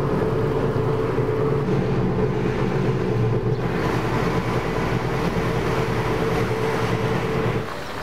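Steady road and engine noise inside a moving car, with a low hum; it cuts off suddenly near the end.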